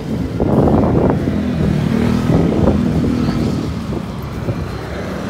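Road traffic with motorcycles passing close by, their engines loudest in the first three seconds and then easing off, with wind buffeting the microphone.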